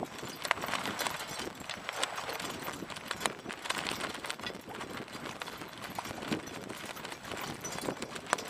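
Choppy lake water splashing and slapping against a small boat's hull, with irregular sharp knocks and a steady rush of water.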